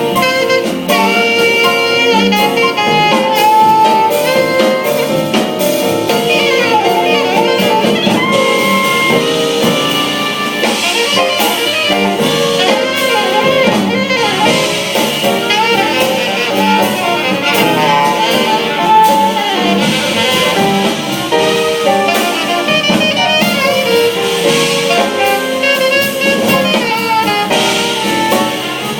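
Jazz band playing, with a saxophone soloing in quick running lines over drum kit and rhythm section.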